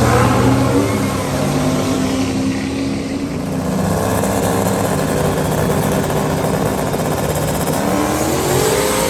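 Vehicle engine running loudly and being revved, its pitch rising near the start and again near the end.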